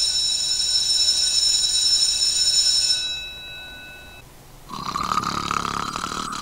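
A high, bell-like ringing of several steady tones that starts suddenly and fades out over about four seconds, then a snore about five seconds in.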